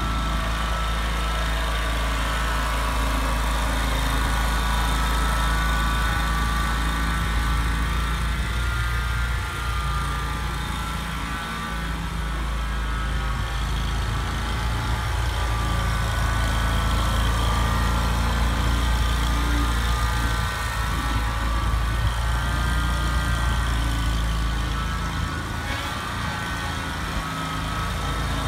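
Toro Z-Master Commercial zero-turn riding mower running steadily as it is driven across the lawn: a constant low engine hum with a higher whine that wavers a little in pitch.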